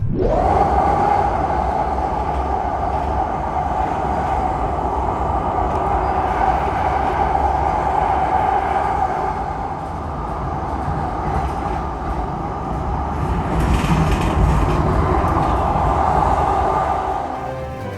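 Light-rail trolley car riding along the tracks, heard from on board: steady rumble and rail noise with a constant whine.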